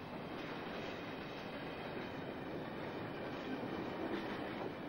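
Long iron ore freight train running on the rails: a steady noise of many wagons rolling along the track.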